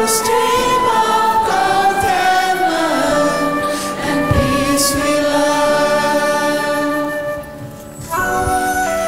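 Mixed choir singing a slow chorus with musical accompaniment, the held notes moving between chords; the sound drops briefly about seven seconds in before the next phrase begins.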